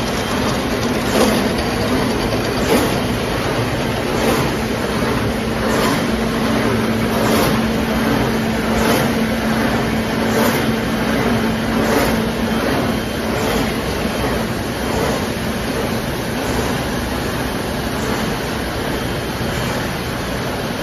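Paper straw production machinery running: a steady mechanical noise with a regular stroke about every one and a half seconds. A steady hum runs under it for most of the time and stops about two-thirds of the way through.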